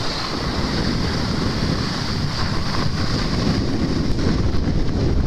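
Wind buffeting the microphone of a camera carried by a skier moving downhill, over a continuous hiss of skis sliding on groomed snow.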